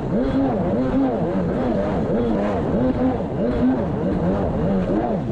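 1990 Kawasaki JS550SX stand-up jet ski's two-stroke twin running under way through a Coffman half-pipe exhaust, its pitch rising and falling about twice a second with the throttle and load.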